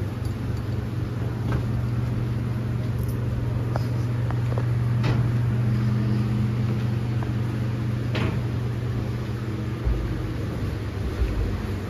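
Steady low mechanical hum with a few light knocks, the clearest about eight seconds in.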